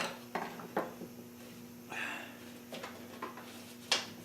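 A few scattered light clicks and taps of metal fender parts being handled and shifted into place, with a sharper click near the end, over a faint steady hum.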